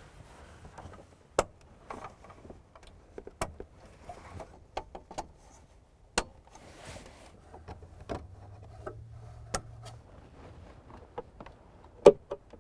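Scattered sharp plastic clicks and small knocks as electrical plug connectors are pushed onto the back of a truck's plastic dash trim panel and the panel is handled, with the loudest clicks near the end.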